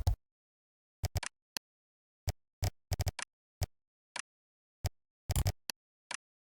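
Computer keyboard typing: irregular keystroke clicks, some single and some in quick runs of two to four, with dead silence between them.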